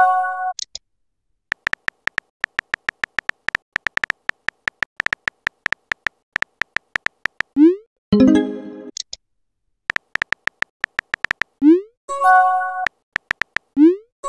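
Texting-app sound effects: long runs of rapid keyboard typing clicks, broken by short rising pops and brief chime tones of a few notes as messages are sent and received.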